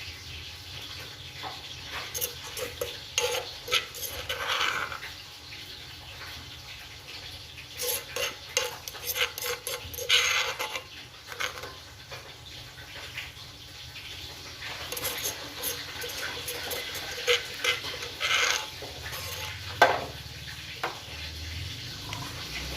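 Spoons and utensils clinking and scraping against dishes in irregular clusters of light clatter.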